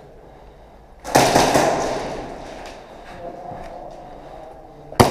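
Airsoft gunfire echoing between plywood walls: a loud rapid burst of cracks about a second in that fades out, then two sharp single shots near the end from a gas blowback pistol.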